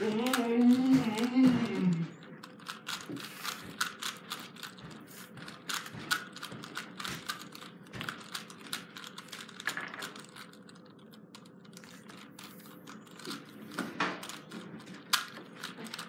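A 3x3 Rubik's cube being turned fast by hand, its plastic layers clicking in quick irregular runs. A man's voice is heard for about the first two seconds.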